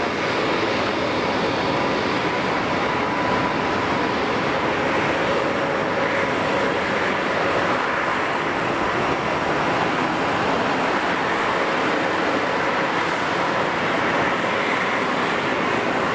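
Jet engine noise from a Bombardier CS100's Pratt & Whitney PW1500G geared turbofans: a steady loud rush with a faint steady whine in it.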